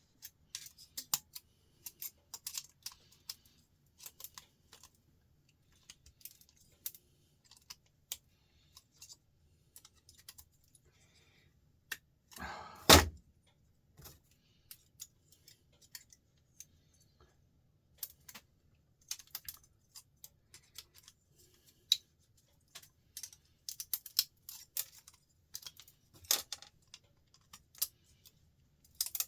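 Irregular light clicks and taps of small metal switch parts and hand tools being worked, as silver contacts are picked out of cooker switches, with one loud knock about 13 seconds in.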